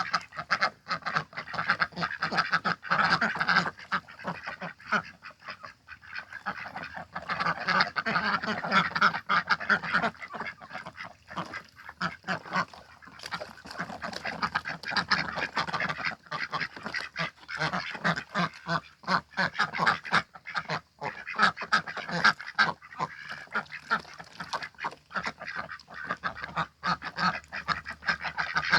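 A flock of domestic ducks quacking and chattering without pause, many short calls overlapping.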